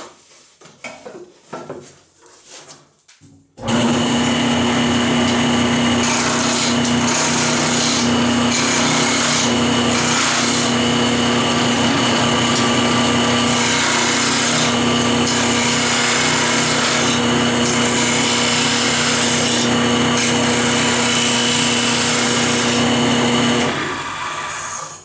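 A few light knocks, then a wood lathe starts about four seconds in and runs with a steady motor hum while a turning tool cuts into a spinning, flat-sided hickory blank, a continuous scraping cutting noise that roughs it toward round. The lathe shuts off near the end and runs down.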